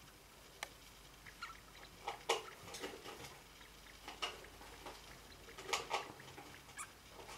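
A degu nosing and rummaging in shredded paper bedding: irregular soft crinkles and small clicks, with louder flurries about two seconds in and again near six seconds.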